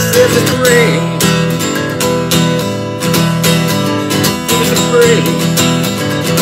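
Song instrumental: strummed acoustic guitar over a steady beat, with a bending melody line near the start and again about five seconds in.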